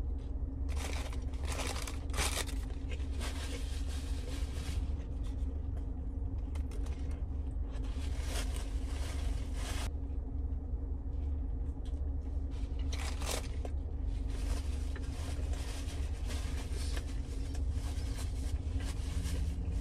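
Close-up eating noises: a chicken sandwich being chewed and its paper wrapper crinkling in short, irregular rustles, over a steady low hum in a car cabin.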